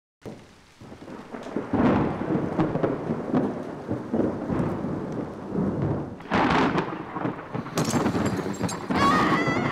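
Rolling thunder with a rain-like hiss, starting suddenly out of silence and swelling in several surges. Near the end a wavering high-pitched tone rises over it.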